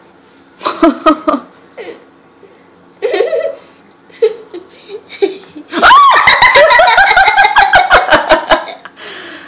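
People laughing: short bursts of giggling, then about six seconds in a long, loud fit of laughter in rapid pulses that lasts nearly three seconds.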